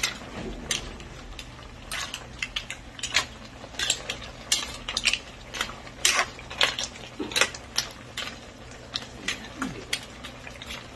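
Metal ladle stirring mussels in broth in a metal pan, with short, irregular clinks of the ladle against the shells and the pan.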